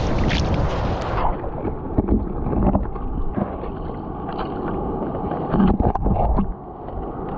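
Shallow seawater splashing as the camera dips under about a second in. After that the sound is muffled underwater sloshing, with a knife blade knocking and scraping on rock a few times while chitons are pried off.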